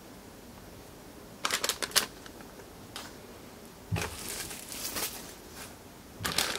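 Small drone parts and plastic packaging bags being handled on a work mat: short bursts of crinkling plastic and light clicks, one a little over a second in, a longer rustle midway, and another near the end.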